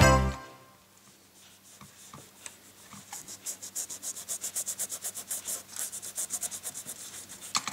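Cloth rubbed briskly back and forth over the metal body of a Dezal 275 electric iron, cleaning grime off its soleplate rim. The strokes are quick, about five a second, and grow steady from about three seconds in, with the tail of background music fading out at the start.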